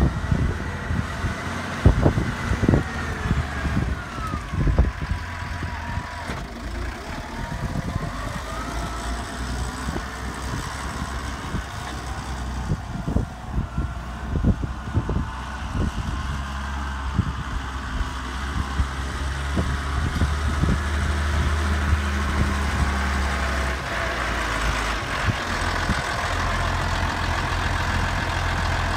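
Massey Ferguson 5465 Dyna-4 tractor's diesel engine running with a steady low hum, a whine gliding up and down in pitch, and scattered knocks through the first half.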